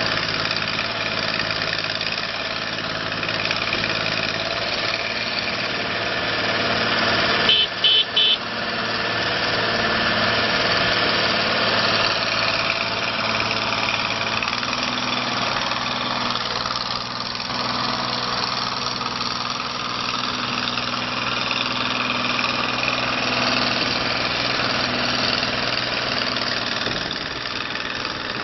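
Ditch Witch RT45 ride-on trencher's diesel engine running steadily as the machine drives about, with three short high-pitched beeps about eight seconds in.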